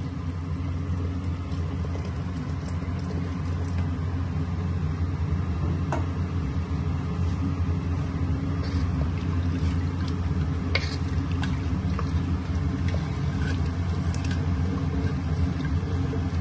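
Steady low rumble and hum in a kitchen, with a few faint clicks, while mutton curry sits in an open pressure cooker on a lit gas stove.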